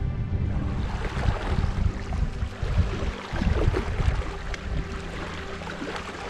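Sea waves washing and splashing in the shallows, with wind rumbling on the microphone.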